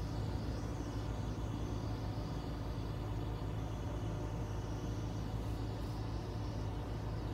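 Mitsubishi Outlander's air-conditioning system running with an abnormal noise: a steady low hum with a fainter hiss above it.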